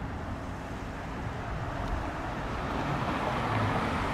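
Steady road and engine rumble of a car being driven, slowly growing louder toward the end.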